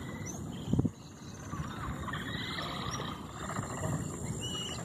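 Wild animal calls: a short, loud, low pulsed grunt a little under a second in, over a scatter of small, high, wavering chirps and whistles.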